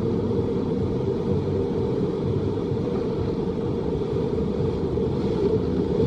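Water rushing and churning down the stepped concrete rapids of a Hopkins river rapids ride, a steady, deep rush with no breaks.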